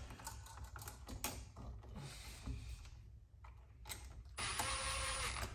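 Light clicks and handling of wires and a switch, then a Milwaukee Fuel cordless drill/driver runs in a steady whir for about a second near the end, driving down the switch's terminal screw.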